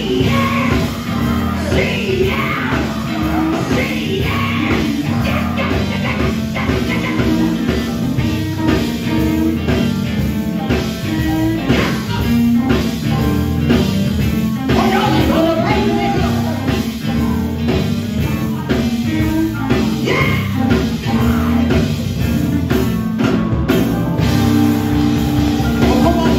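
Live gospel band playing an upbeat rock-style groove on electric guitar, bass guitar and drums, with a lead singer's voice coming in over it at times.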